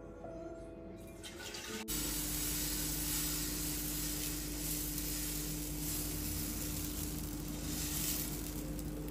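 Soft music, then from about two seconds in a steady hiss with a low hum at the stove as dosa batter is spread on a hot tawa.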